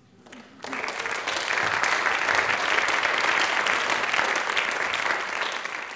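Audience applauding: many hands clapping together, starting about half a second in and holding steady.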